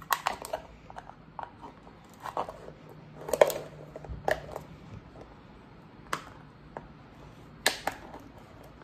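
Scissors cutting through the bottom of a small thin plastic container: irregular crackling snips about a second apart, the loudest about three and a half seconds in.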